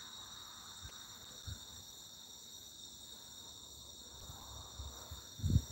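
Crickets chirping in a steady night chorus. Now and then a low thump cuts through, the loudest near the end.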